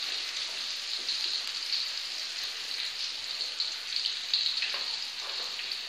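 Steady sizzling and crackling of shallots, garlic, chillies and tempe frying in oil in a pan. A few light knife taps on a cutting board sound near the end as a carrot is sliced.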